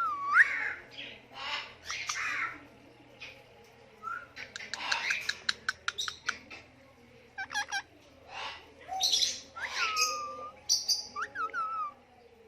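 Pet parakeets chirping, whistling and squawking in short calls, some with sliding whistled notes, with a quick run of short sharp notes about five to seven seconds in.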